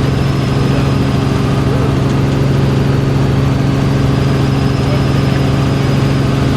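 Helicopter running with a loud, steady drone: a strong low hum with overtones and a faint high whine above it.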